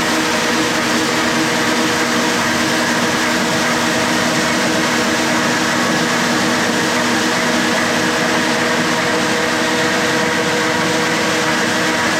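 Hyper Grinder floor sander running steadily, sanding a pine floor: a constant mechanical hiss with a steady hum.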